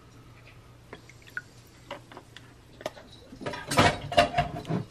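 Half-and-half poured into a ceramic mug of coffee, with light taps and clinks. A louder run of knocks and clinks of the mug on the granite counter comes near the end.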